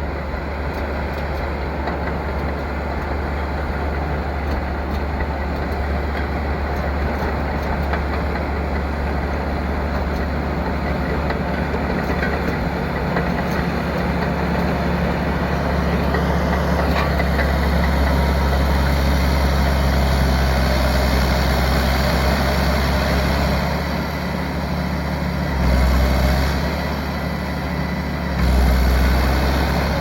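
Caterpillar D8K bulldozer's diesel engine running steadily, with two brief surges in engine note near the end.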